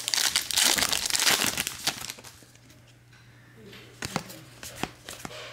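A foil trading-card pack wrapper being torn open and crinkled, loud and crackly for about two seconds. After a short quiet spell come a few light clicks and snaps as the stack of cards is handled.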